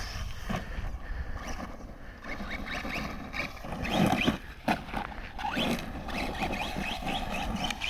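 Rival MT10 RC monster truck's electric motor whining up and down in pitch as it is repeatedly revved, over a low rumble of tyres on dirt.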